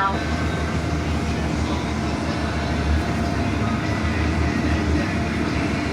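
Steady interior running noise of a 2015 Blue Bird Vision school bus under way: a low engine and drivetrain rumble with road noise.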